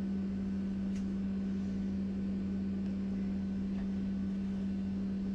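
A steady low machine hum with one unchanging tone, with a faint tap about a second in.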